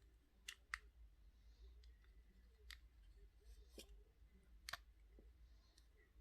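A handful of short, sharp clicks and taps, about five over six seconds, the loudest about three-quarters of a second in, from small plastic items being handled during unboxing.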